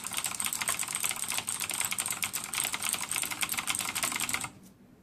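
Rapid typing on two clicky blue-switch mechanical keyboards at once, a Cherry MX Blue board and a Gamdias blue-switch board, a dense run of sharp key clicks that stops suddenly about four and a half seconds in.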